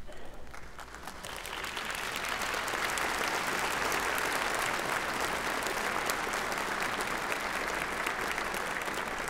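A large congregation applauding, building up over the first two seconds and then holding steady.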